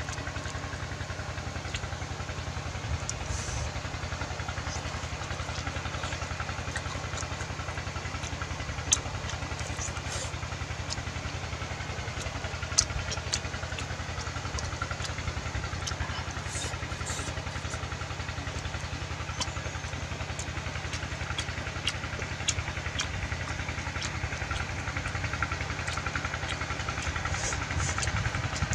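An engine runs steadily with an even low hum, and a few sharp clicks sound over it.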